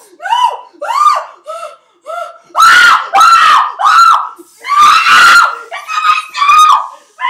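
A young woman screaming in fright, a rapid string of short, high-pitched shrieks with two longer, louder screams near the middle.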